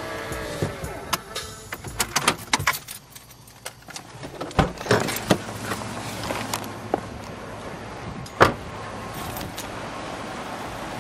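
Scattered clicks, rattles and knocks from a handheld camera being handled inside a car, over a steady low hum of a vehicle. The loudest is a single sharp knock about eight seconds in.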